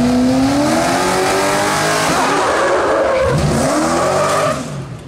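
Fire truck engine running hard as the truck accelerates up the course, rising in pitch, then tyres squealing as it brakes. The loud noise falls away abruptly about four and a half seconds in.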